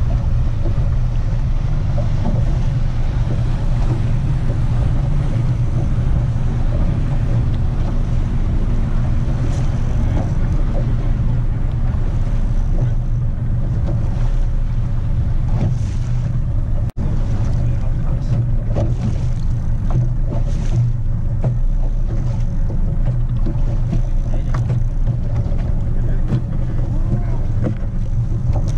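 Boat's motor running steadily at low trolling speed, a constant low drone with wind and water noise over it. The sound drops out for an instant about halfway through.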